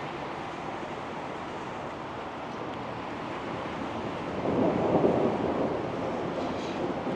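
A roll of thunder: a low rumble that swells about four seconds in and slowly dies away, over a steady background of wind noise on the microphone.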